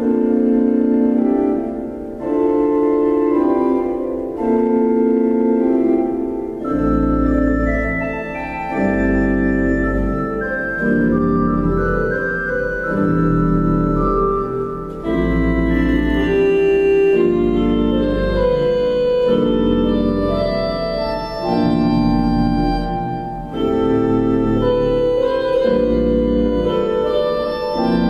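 Organ music: held chords that change every second or two, with a deep bass line joining about seven seconds in.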